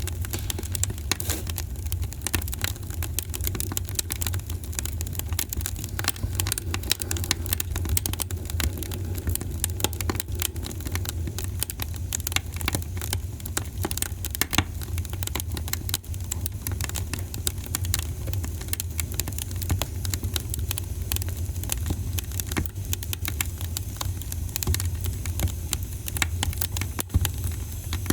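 Wood fire crackling in a fireplace: a dense, irregular run of small pops and snaps over a steady low rumble, with one louder pop near the end.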